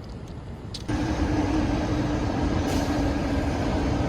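A motor vehicle running: a steady low rumble with a constant hum, starting abruptly about a second in.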